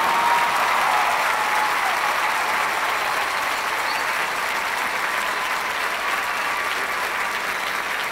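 Large stadium crowd applauding and cheering at the end of a marching band's show, steady and slowly easing off.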